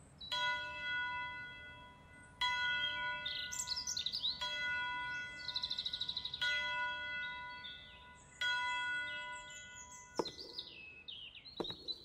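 A church bell tolling five times, about two seconds apart, each stroke ringing on as it fades, with morning birds chirping and trilling between the strokes. A couple of sharp knocks near the end.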